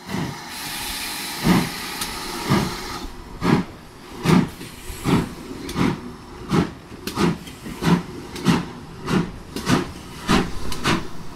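Steam locomotive letting off a hiss of steam, then chuffing as it pulls away, the exhaust beats coming steadily faster.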